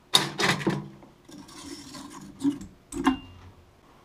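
Thin stainless-steel ring and parts of a small slip-roll machine being handled after the side plate is unbolted: a few clinks and knocks, a scraping stretch, then two more knocks, the second with a short metallic ring about three seconds in.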